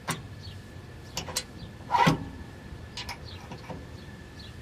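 Scattered metal clinks and knocks from the mower deck's gauge-wheel pins being moved and set, the loudest knock about two seconds in, over a faint steady high whine.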